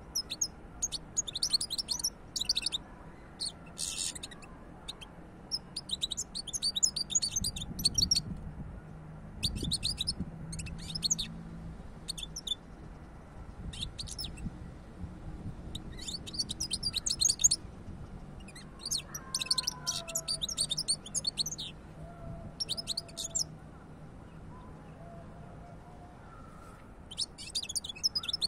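European goldfinch singing: about ten phrases of rapid, high twittering and trilling, each lasting half a second to a few seconds, with short pauses between them.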